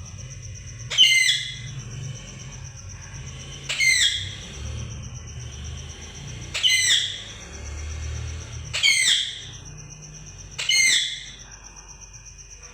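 Pet parrot calling loudly five times, about two to three seconds apart, each call short and shrill.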